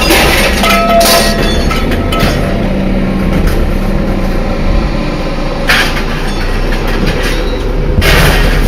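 A vehicle running with a heavy, rattling rumble, with a brief squeal about a second in and louder bursts of noise near the end.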